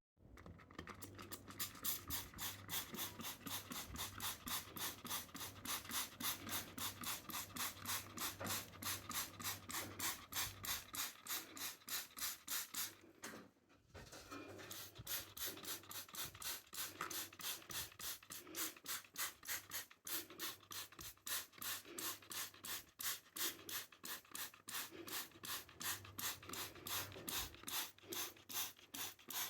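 Rapid rhythmic rubbing or scrubbing strokes on the air conditioner's indoor unit, about four a second, briefly stopping about halfway through.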